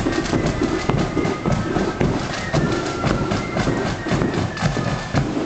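Marching band playing in a street parade: a held wind-instrument melody over frequent drum beats.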